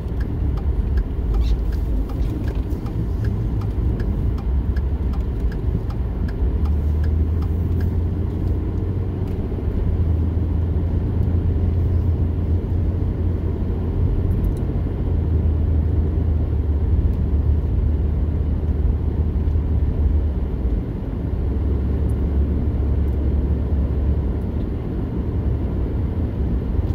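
Pickup truck driving on a city highway, heard from inside the cab: a steady low rumble of engine and tyre noise.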